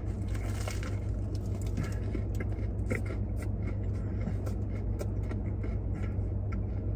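Close-up chewing of a crunchy Dutch Crunch bread sandwich: many small, irregular crunches and clicks. Under it runs a steady low hum from the car's engine idling.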